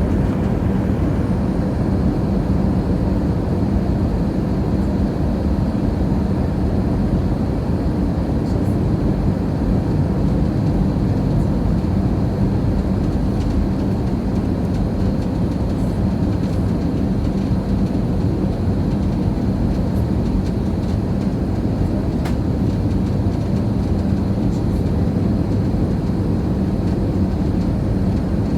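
Steady drone of an airliner cabin in flight: a constant low rush of engine and air noise with a steady hum underneath.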